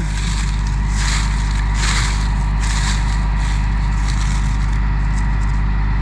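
A combine's diesel engine running steadily, with crackling, crunching steps through dry corn stalks and husks about one, two and three seconds in.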